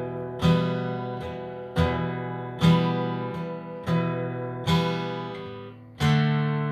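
Acoustic guitar strummed in slow single strokes, about one a second, each chord ringing out and fading before the next. Near the end it changes to a louder chord.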